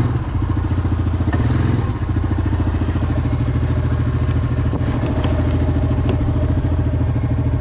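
ATV engine idling close up with an even pulsing beat, easing down slightly about two seconds in and then holding steady.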